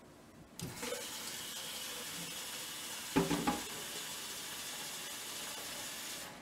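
Water running from a tap into the Keurig Rivo's plastic water reservoir as it is filled. It starts about half a second in and cuts off suddenly just before the end, with a brief clatter of knocks about three seconds in.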